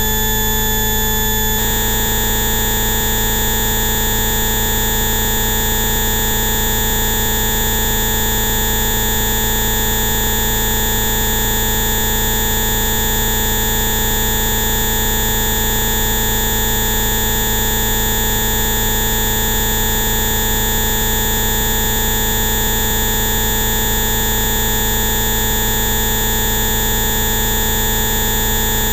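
A chord of many steady electronic tones sounding together at once, a 'Rife frequency' complex. The set of tones switches abruptly under two seconds in, then holds unchanged.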